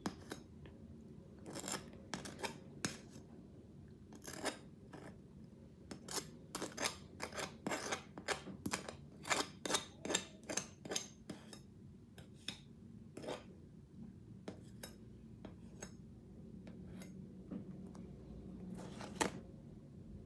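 Metal butter knife scraping through thick cream, in a string of short scratchy strokes. The strokes come quickly, about two a second, in the middle of the stretch, and more sparsely toward the end.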